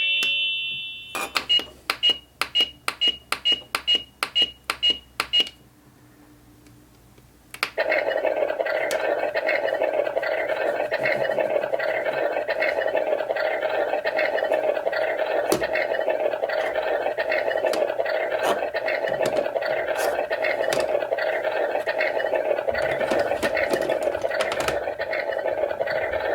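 Battery-powered toy kitchen appliance: a string of about ten short electronic beeps with clicks. After a short pause a small electric motor starts and runs with a steady, rhythmic whirr.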